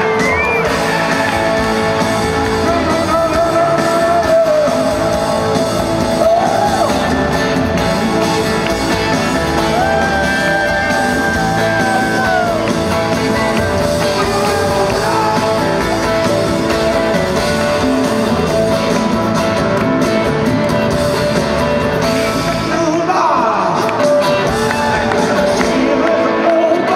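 Loud live rock band performance: a male lead singer over drums and electric guitar, with sung phrases coming and going over the steady band.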